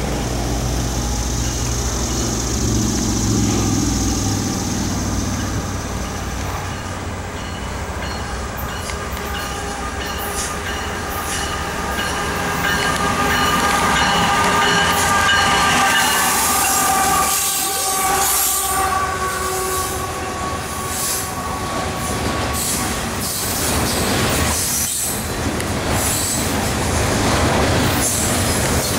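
CSX diesel freight train passing at close range: locomotive engine rumble as it approaches, then its cars rolling by with wheel clatter and sharp clicks over the rail joints. A steady chord of high tones holds for much of the middle.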